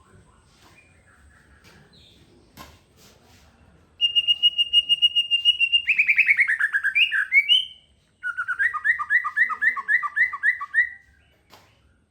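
A songbird singing: a fast trill held on one high pitch, sliding down into a run of falling notes, then after a short break a quick repeated two-note phrase for about three seconds.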